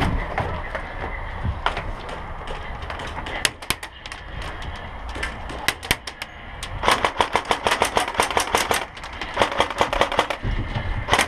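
Airsoft guns firing: scattered single shots, then two rapid full-auto bursts in the second half, the first lasting about two seconds and the second about one second.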